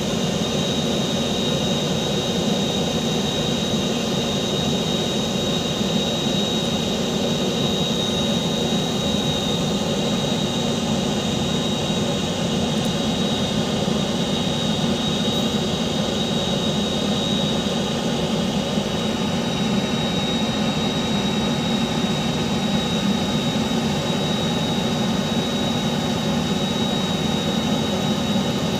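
Steady turbine-like whine over a constant rumble, the running noise of aircraft and ground equipment on an airport apron during refuelling.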